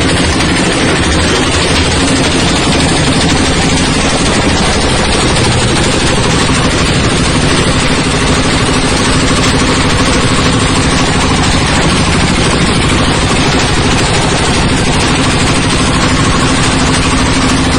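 Coconut husk decorticating machine running, loud and steady: an engine or motor hum under a dense, rapid rattling clatter.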